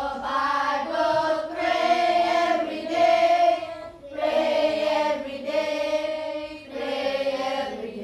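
A choir singing a slow chant: long held notes over a low sustained drone, in phrases that break off about four seconds in and again near seven seconds.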